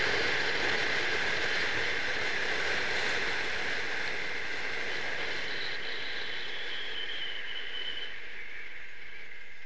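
A 1962 Triumph Herald 1200 driving along, heard through a camera mounted outside on the car body: a steady rush of wind and tyre and road noise. The noise eases a little in the second half as the car slows, and a faint high whistle steps down in pitch about halfway through.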